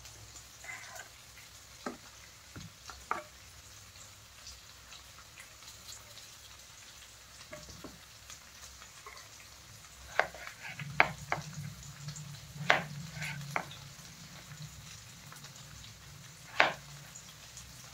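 Chef's knife slicing a peeled potato on a plastic chopping board: scattered knocks of the blade meeting the board, most of them in the second half. Under them runs a faint steady sizzle of onions and green chillies frying in oil.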